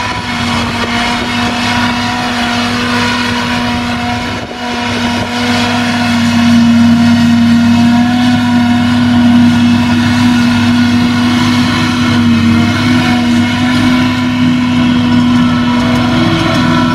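Claas Jaguar forage harvester running under load while chopping grass, a steady engine drone with a strong held whine from the chopping and blowing machinery, with the tractor pulling the trailer alongside. It grows louder about a third of the way in as the machines come closer.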